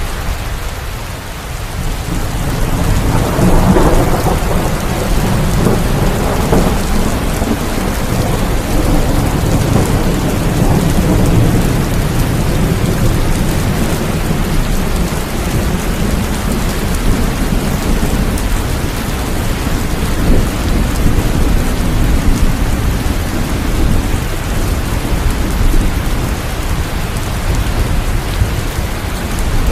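Steady rain falling, with a roll of thunder that swells about two seconds in and rumbles on for over ten seconds as it fades.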